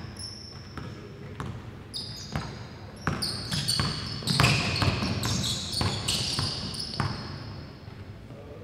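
A basketball dribbled repeatedly on a hardwood gym floor, each bounce a sharp thud at an uneven pace, mixed with high sneaker squeaks on the hardwood that come thickest in the middle as the player drives and changes direction.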